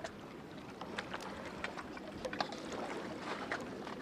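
Lake water lapping against shoreline rocks: a steady wash with many small splashes and drips.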